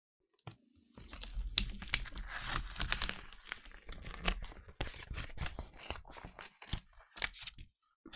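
A sheet of printing paper being handled and peeled off a painted gel plate: crinkling and crackling with many sharp little clicks as it comes away from the tacky acrylic paint. It starts about half a second in and stops just before the end.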